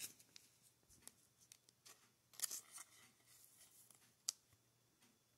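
Faint rustling of a thin clear plastic sleeve as a trading card is slid into it, with a brief louder crinkle about two and a half seconds in and a single sharp tick a little after four seconds.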